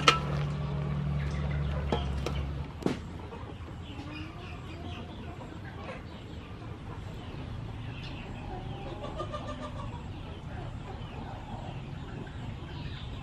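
A metal spatula clanks against an aluminium wok over a steady low rumble, with the sharpest clank at the start and others about two and three seconds in. The rumble then stops, and chickens cluck now and then.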